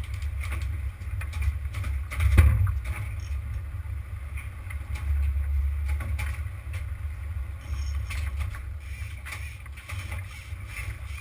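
Boat at sea: a steady low rumble with scattered knocks and clicks, and one louder thump about two and a half seconds in.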